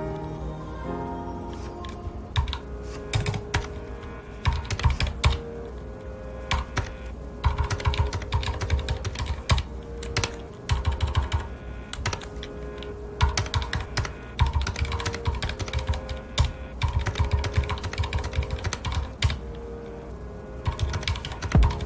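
Typing on a mechanical keyboard with red (linear) switches: quick runs of key clicks in bursts of a few seconds, broken by short pauses, over soft background music with sustained tones.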